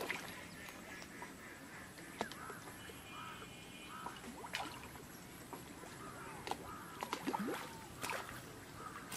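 Short animal calls, several in a row, each rising and falling, over a faint background with a few scattered clicks.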